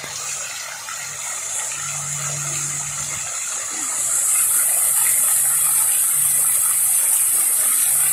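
Water of a tiered fountain pouring in a curtain from the rim of the upper basin into the pool below: a steady splashing rush with a hissy top that gets louder about four seconds in.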